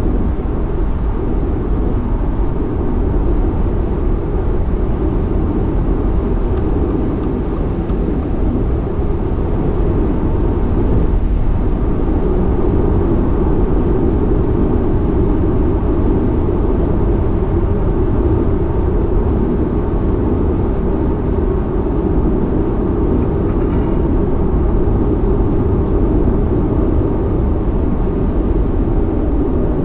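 Steady road and tyre noise of a car cruising at highway speed, heard inside the cabin as an even low rumble.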